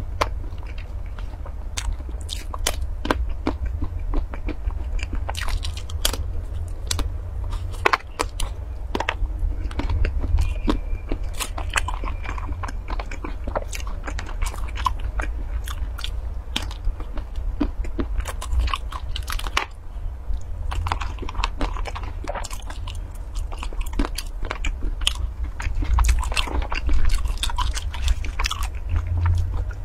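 A person biting and chewing food close to the microphone, with many short, sharp wet mouth clicks, over a steady low hum.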